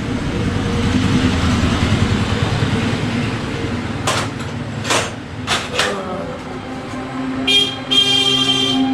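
Street traffic running by with a steady engine rumble, a few sharp knocks in the middle, then a vehicle horn honking near the end: a short toot followed by a longer blast.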